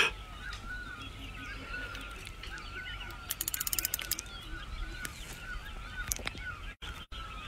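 A spinning reel clicks rapidly for about a second, starting a little over three seconds in, while a hooked carp is played. Under it run faint wavering bird calls and a low rumble.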